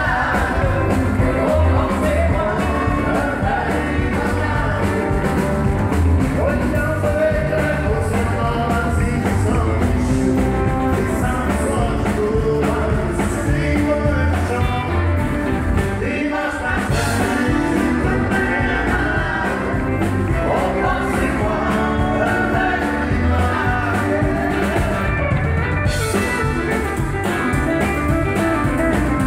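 Live country band performing a song through a PA: singing over acoustic guitars, keyboards and drums, with a brief break in the playing about halfway through.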